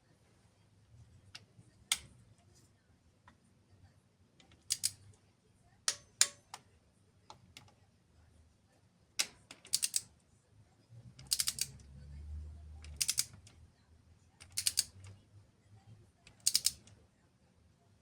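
Hand tools working on the engine: single clicks and short bursts of rapid clicking every second or two, with a faint low rumble near the middle.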